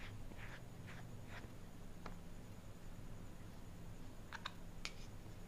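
Quiet small room with a low steady hum; a powder puff makes a few faint soft dabs against the face in the first second and a half, followed by a faint tick about two seconds in and a few small clicks near the end.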